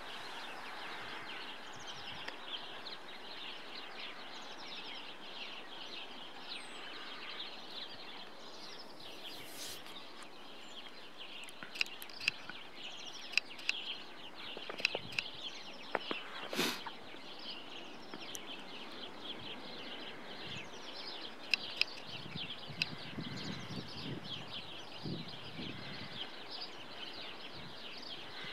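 Many small birds chirping without a break. Through the middle stretch come scattered sharp ticks from the camera's exposure wheel being turned.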